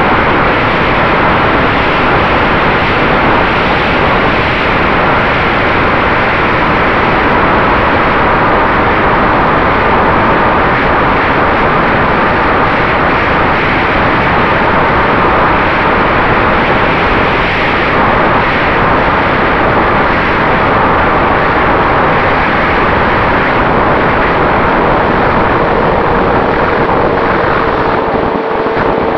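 Steady rush of wind and propeller noise from a Ritewing Mini Drak FPV flying wing in flight, heard through its onboard camera. The electric motor adds faint steady whine tones under the rush.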